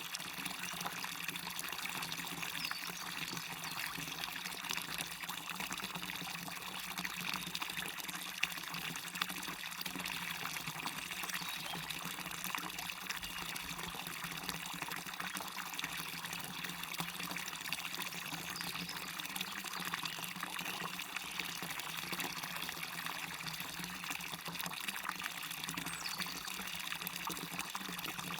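Waterfall with water pouring and splashing steadily, an even rushing hiss that does not change.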